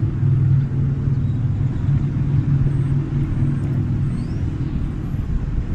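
Steady low rumble of motor-vehicle traffic with a constant low hum, picked up on a phone's microphone. A few faint high chirps come about three to four seconds in.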